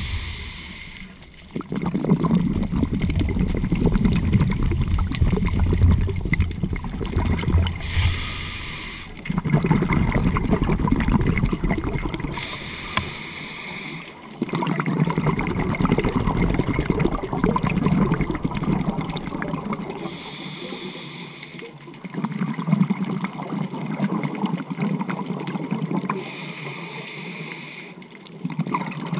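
Scuba diver breathing through a regulator underwater: a short hissing inhale followed by several seconds of bubbling exhale, repeating about five times at a steady pace.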